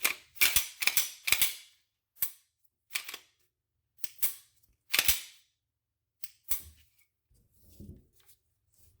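About nine sharp, irregularly spaced clicks and snaps of a Glock-pattern Polymer 80 pistol's parts being put back together, the slide being refitted to the frame. The loudest come in the first second and a half and again about five seconds in.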